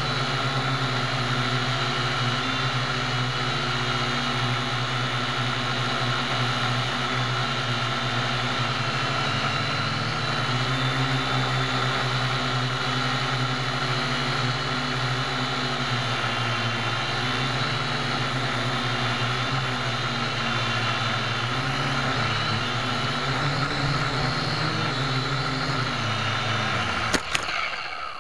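Syma X1 quadcopter's small electric motors and propellers whirring steadily, heard from a camera on the craft, the pitch shifting slightly as it flies. Near the end the drone hits the ground with a sharp knock and the whir cuts off.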